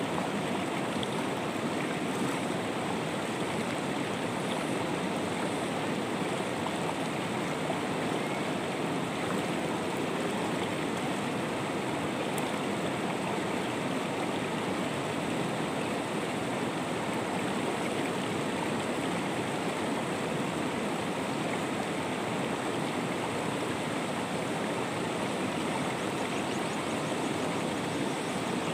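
Shallow rocky river flowing over and around boulders: a steady, even rush of water.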